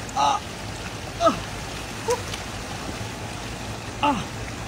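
Steady hiss of water in a flooded, muddy spot. Over it, four short calls, each sliding down in pitch.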